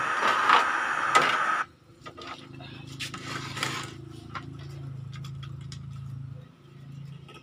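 A CRT television's speaker hissing with loud static from an untuned channel, which cuts off suddenly about a second and a half in. After that a low steady hum with scattered light clicks and taps.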